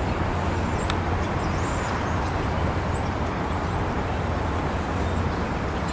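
Amtrak GE P42DC diesel-electric locomotive approaching, its engine giving a steady low rumble.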